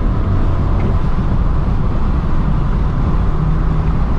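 BMW 335i's N54 twin-turbo straight-six running steadily with road noise while the car is driven, a low even rumble with no gear change or rev swing.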